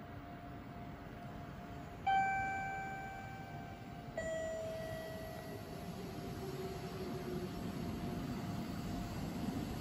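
Two-note descending ding-dong chime from the station, the first note about two seconds in and a lower one about two seconds later, each ringing out and fading. Under it the low rumble of the approaching JR Central 313 series electric train slowly grows louder.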